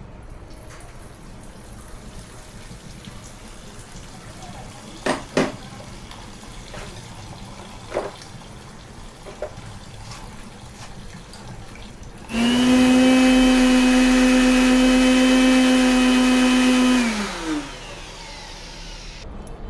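A small motor starts about two-thirds of the way in and runs at a steady high whine for about five seconds, then winds down and stops. A few short knocks come before it.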